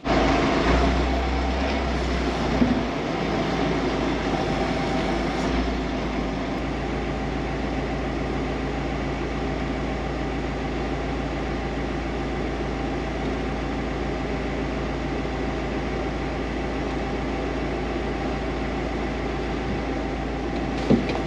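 A farm machine's diesel engine running steadily at an even speed.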